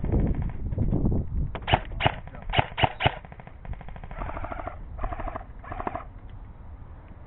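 Airsoft guns firing: a quick string of sharp single cracks, then three short full-auto bursts from an electric airsoft gun about four to six seconds in.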